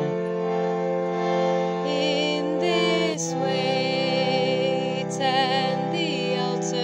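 A woman singing a slow, wavering melody over steady held chords from a reed keyboard instrument. The chord changes about three seconds in and again near the end.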